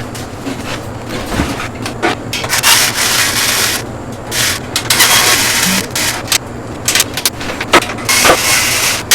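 Hands handling computer parts during assembly: irregular bursts of rubbing and scraping, with scattered sharp clicks.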